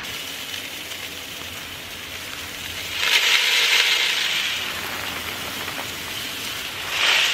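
Mixed chicken grain of sorghum, corn and wheat pouring from a woven sack into a drum and through a hand, a steady rain-like hiss of seeds that grows louder about three seconds in and again near the end.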